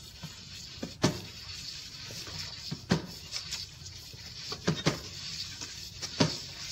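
Hand tapping the side of a plastic bucket turning on a potter's kick wheel, tapping it on centre: about five dull knocks spaced irregularly a second or two apart, over a steady hiss.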